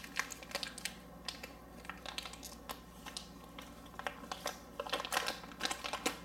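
Bubble wrap bag and plastic packing crinkling and crackling as it is handled and opened by hand. The crackles are irregular and come thicker near the end.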